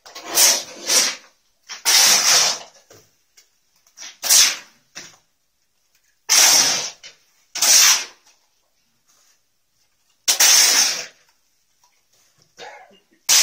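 Long-handled brooms scraping and sweeping wet plaster mortar across a concrete floor, in about a dozen irregular strokes lasting up to about a second each.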